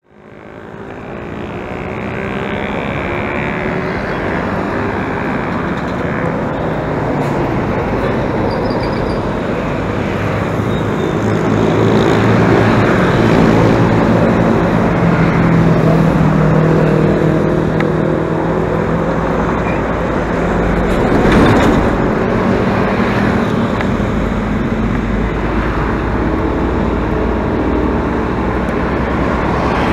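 Road vehicles driving: steady road and engine noise, with engine hum that rises and falls in pitch, and a brief louder swell of passing traffic about 21 seconds in. The sound fades in over the first two seconds.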